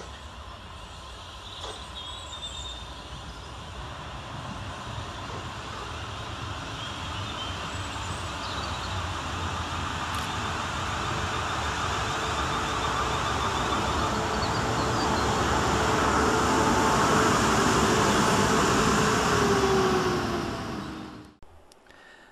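South Western Railway Class 450 Desiro electric multiple unit running at the station. It grows steadily louder over about twenty seconds, with a motor whine that dips slightly in pitch near the end, then cuts off suddenly.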